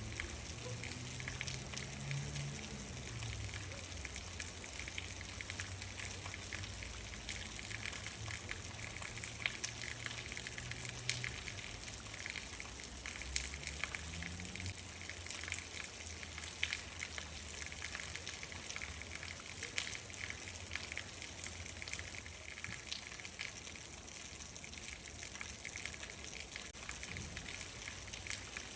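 Steady rain, with many separate drops ticking sharply over an even hiss. A low rumble underneath through the first half fades away in the second.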